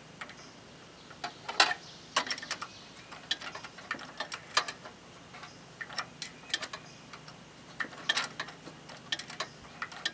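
Irregular metallic clicks and clinks of a hand wrench tightening the starter motor's mounting bolts on a Briggs & Stratton single-cylinder engine. They come in short bunches, the loudest click about one and a half seconds in.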